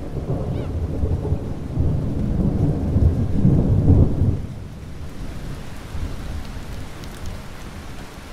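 Wind buffeting the microphone in a low, gusty rumble that builds to its strongest about three to four seconds in and then eases, over steady rain.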